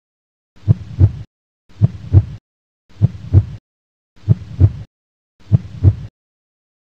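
Heartbeat sound effect: five double thumps, lub-dub, about one every 1.2 seconds with dead silence between them, stopping about six seconds in.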